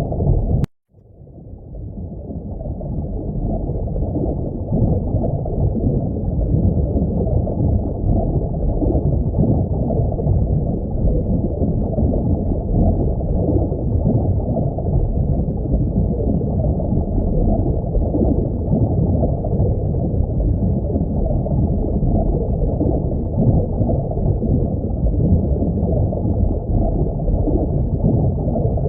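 Steady, muffled low rush of aquarium water. It cuts out with a click under a second in, then fades back up over the next few seconds.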